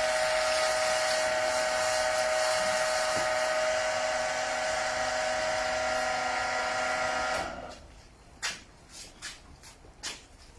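A small electric motor whirring steadily, cutting off about three seconds before the end, followed by a few faint clicks and knocks.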